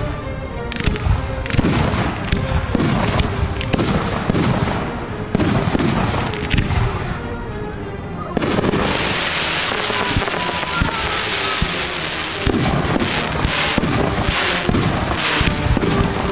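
Aerial fireworks shells bursting, a rapid series of booms and bangs, with a denser hiss of bursting stars from about eight seconds in.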